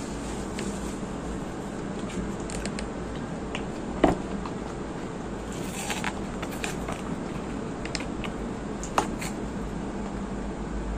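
Eating and food-handling noises: crackling and rustling with a few sharp clicks, the loudest about four seconds in and another near the end, over a steady background hum.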